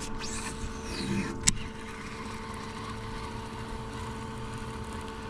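Steady low hum of a boat's electric trolling motor, with a short whirr early on and one sharp click about a second and a half in.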